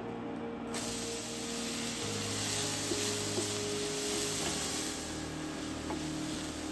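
Chopped onion sizzling in hot oil in a stainless sauté pan, the hiss starting suddenly about a second in as the onion goes in and carrying on steadily while it is stirred with a wooden spoon.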